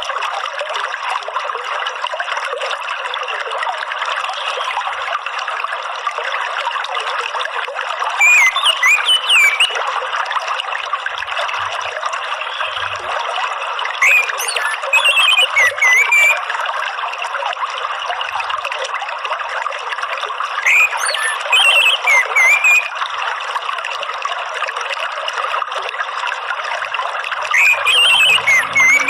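Running water trickling steadily, with four short warbling song phrases of an orange-headed thrush (anis merah) spaced about six seconds apart.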